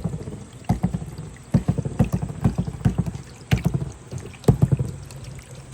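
Marbles rolling down a marble run track with a low rumble and clicking into a growing queue of marbles held back at a stopper, in irregular bursts of clatter about a second apart.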